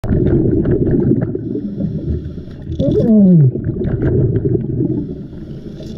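Underwater noise picked up through a GoPro housing: a loud, crackling low rumble of a scuba diver's exhaled regulator bubbles and handling of tangled fishing line. A short falling tone comes about three seconds in.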